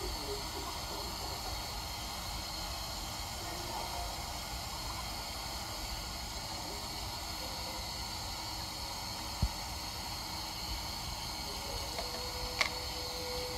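Bathroom sink faucet running a steady thin stream into the basin, with two small knocks in the second half. A faint steady tone starts near the end.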